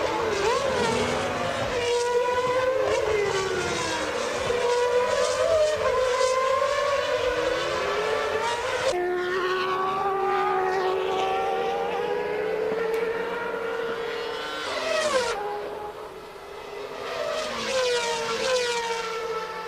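Formula One race car engines at racing revs, the high note rising and falling with throttle and gear changes, with a sudden drop in pitch about nine seconds in. About fifteen seconds in the note climbs sharply and cuts off, the sound dips briefly, then engine noise builds again.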